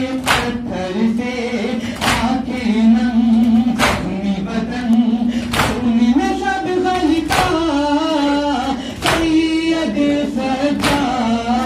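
Men's voices chanting a nauha, a Muharram lament, to a regular beat, with a group chest-beating strike (matam) landing about every second and three-quarters, seven times.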